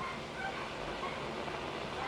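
Sangean ATS-818CS world-band receiver tuned to 27.025 MHz AM (CB channel 6), putting out a steady hiss of static with short whistling tones coming and going: the band is open to skip.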